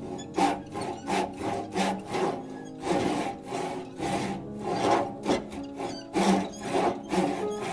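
A hand tool working wood in rhythmic back-and-forth strokes, about two a second, as the spiral is cut into a segmented maple and mahogany wine glass. Background music plays underneath.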